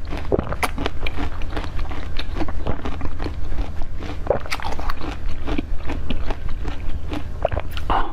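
Biting and chewing a block of ice frozen with pomegranate seeds: a steady run of crisp cracks and crunches, over a low steady hum.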